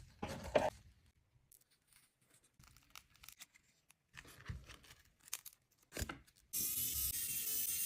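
Scattered light clicks and taps of small parts being handled, then from about six and a half seconds a steady tearing noise.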